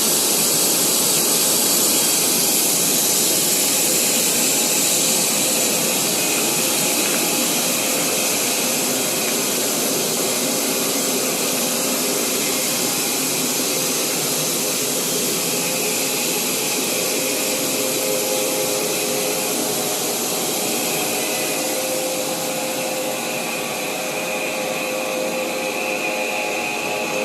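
Pelletizer cutting machine running steadily with a continuous loud whirring noise; a faint high whine joins in during the second half.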